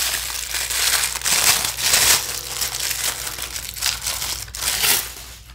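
Crinkly packaging bag from a mini doll's accessory pack being handled and crumpled in the hands, a continuous crackling rustle that dies down near the end.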